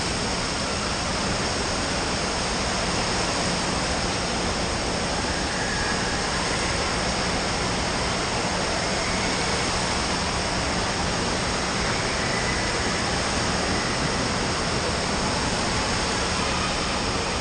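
Water park ambience: a steady, even rush of running water.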